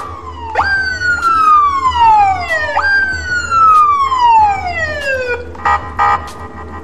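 Electronic police siren: twice a tone jumps up sharply and glides slowly down over about two seconds, and near the end the fast pulsing warble starts again.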